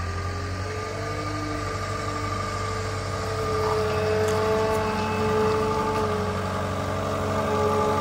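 Cat skid steer's diesel engine running as the loader drives with a load on its forks. The engine pitch shifts, and the sound gets louder from about halfway through as the machine comes closer.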